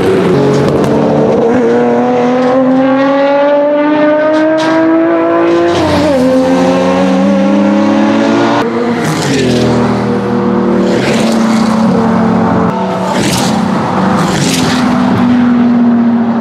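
BMW E30 325i Group A's M20 2.5-litre straight-six racing engine accelerating hard, its pitch climbing steadily, with an upshift about six seconds in that drops the revs before they climb again. After a cut near nine seconds, another E30 325i straight-six is heard running at varying revs, with short sharp cracks.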